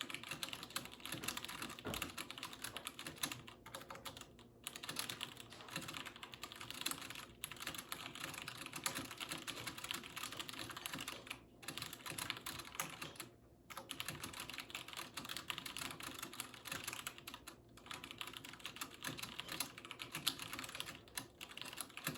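Fast typing on a 60% mechanical keyboard with brown tactile switches, a Royal Kludge RK61: a dense, quick patter of key clicks at about 100 words per minute, broken by short pauses every few seconds.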